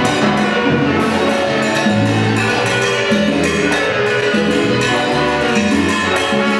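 Live band with congas, drum kit, keyboard and horns playing an instrumental passage of a Latin dance tune, with a busy repeating bass line and no singing.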